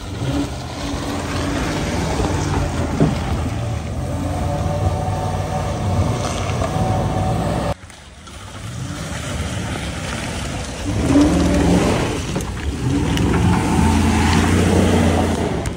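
Vehicle engines revving under load during a strap recovery of a mud-stuck Jeep Cherokee XJ. The sound drops off suddenly about halfway through, then builds again to a louder, harder run near the end.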